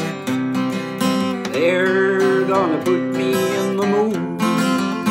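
Steel-string acoustic guitar strummed in a steady rhythm, with a man singing along from about a second and a half in.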